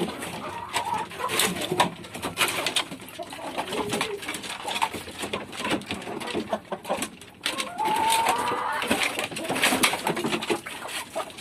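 Free-range village chickens (ayam kampung) clucking and murmuring while feeding, with many sharp taps throughout. A longer wavering call comes about eight seconds in.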